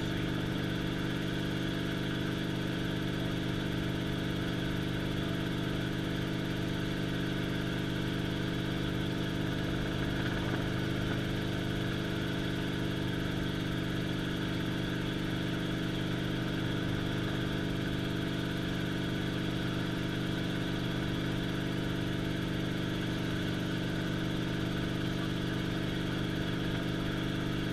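Small helicopter's engine and main rotor running steadily in flight, heard from inside the cockpit as an even drone with steady low tones.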